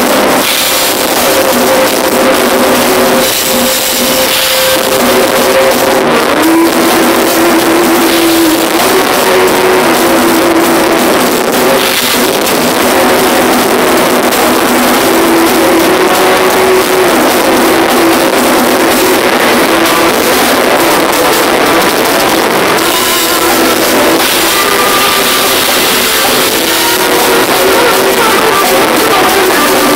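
Loud live rock music at a band sound check, a dense steady wall of sound with held notes that change every few seconds.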